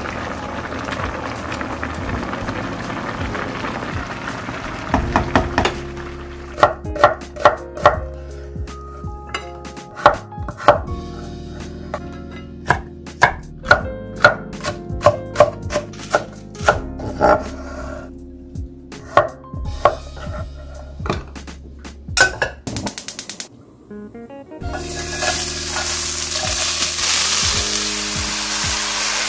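Seaweed soup bubbling in a pan as a wooden spatula stirs it. Then a kitchen knife chops red and green chili peppers on a wooden cutting board in irregular strokes, ending in a rapid run of quick chops. About 25 seconds in, onions, carrots and peppers start sizzling loudly as they stir-fry in a hot steel wok.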